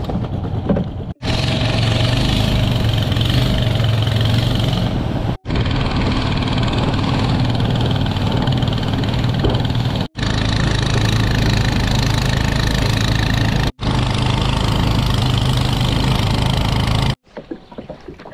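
A small boat engine running steadily at an even speed. It comes as several stretches of a few seconds each, joined by abrupt cuts, and stops about a second before the end.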